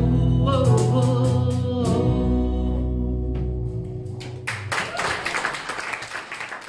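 A woman sings the last line of a folk song over acoustic guitar and bass guitar. The final chord rings out and fades, and audience applause begins about two-thirds of the way through.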